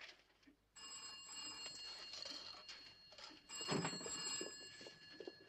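Desk telephone's bell ringing, starting under a second in, in long rings with a short break a little past halfway. There is a single dull thump at the start of the second ring.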